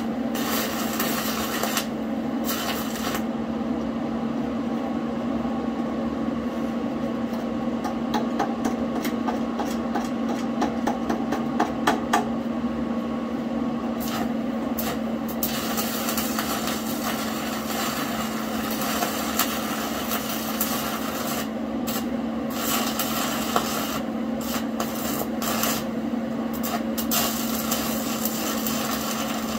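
Electric arc welding on a steel bracket: the arc crackles and sizzles steadily, with a few short breaks where the arc stops and restarts, over a steady low hum.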